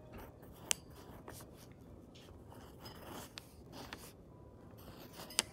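Pencil writing on paper: faint scratching strokes, with a few sharp ticks of the pencil.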